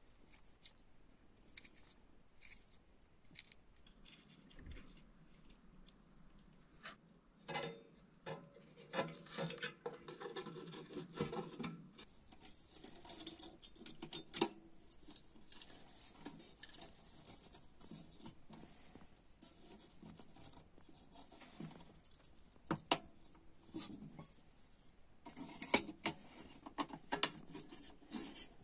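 Hands working on a metal hurricane lantern: scattered small metal clicks and taps, with stretches of rubbing and rattling as the burner, wire frame and glass globe are handled and fitted together.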